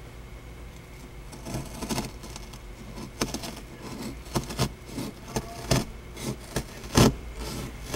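Snap-off utility knife blade cutting through a vehicle's roof headliner: a run of irregular scratching strokes that starts about a second and a half in, the sharpest one near the end.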